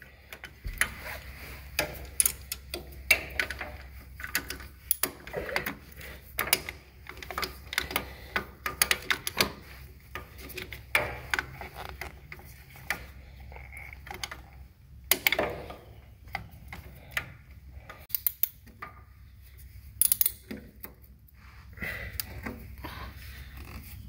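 Irregular metallic clicks and taps from a hand wrench or ratchet working the mounting bolts of a backhoe's diesel fuel injection pump, with tools knocking against the pump housing.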